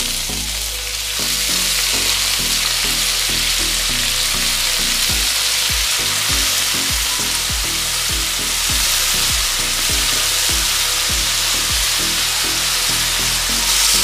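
Chunks of raw goat meat dropped into a hot metal wok of sautéed garlic and onion, frying with a steady sizzle in the oil. The sizzle thickens about a second in as more meat goes in.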